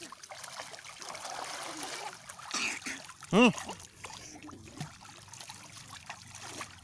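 Shallow seawater splashing and trickling as small children wade, sit and pour water in it. About three and a half seconds in, a short, loud voiced cry rises and falls once.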